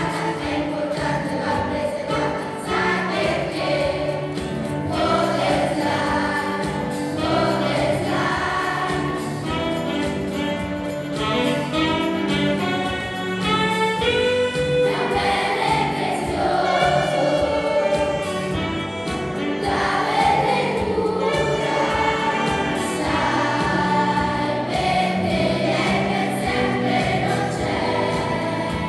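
Large children's school choir singing a song.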